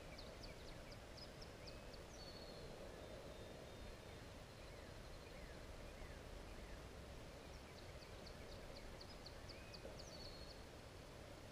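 Faint outdoor background noise, with a small songbird singing a rapid run of high, quick notes ending in a short trill. It sings twice: at the start and again about eight seconds in.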